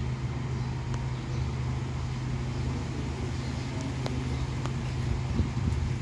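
Strong wind blowing through leafy trees and buffeting the microphone: a steady low rumble under a faint hiss of leaves, with a few light ticks.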